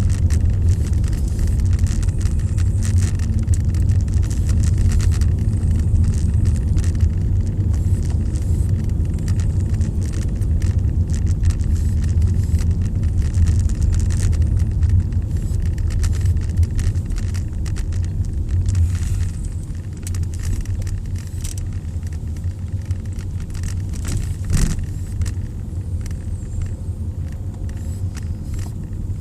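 Steady low rumble of a truck on the move, with wind buffeting. It eases somewhat about two-thirds of the way through.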